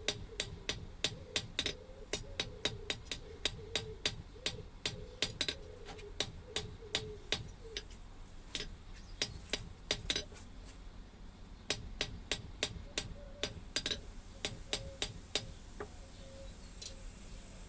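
Hammer blows on an iron bar on the anvil, flattening the end of a tripod leg: a steady run of sharp ringing strikes, about three a second, broken by brief pauses a little past the middle.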